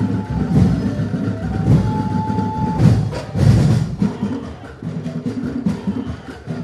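Festival drum and percussion music, dense, steady drumming with a high melody line that settles into a held note about two seconds in. A loud burst of heavy hits comes about three seconds in, and the drumming thins out after that.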